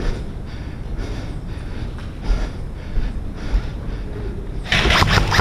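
Footsteps and gear rustle of an airsoft player on the move, about two steps a second, over low wind rumble on the camera microphone. Near the end a loud burst of airsoft gunfire breaks in.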